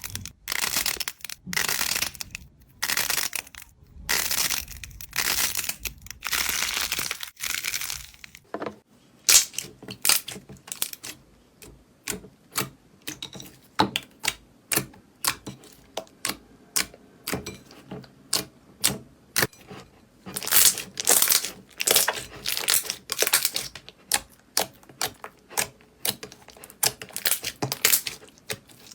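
Slime worked by hand: repeated crackly squeezes about once a second. After about eight seconds these give way to quick runs of sharp little pops and clicks, several a second.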